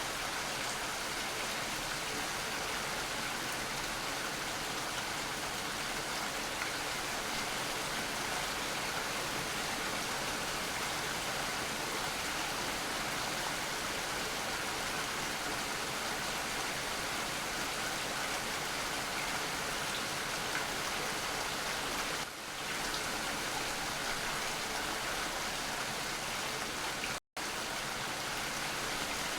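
Steady rainfall, an even hiss of many drops, which cuts out to silence for an instant near the end.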